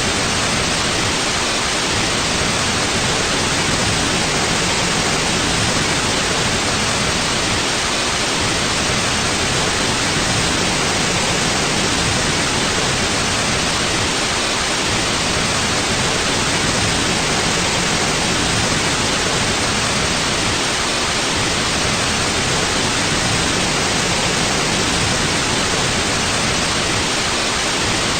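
Steady white noise: an even, unchanging hiss spread evenly from low to high.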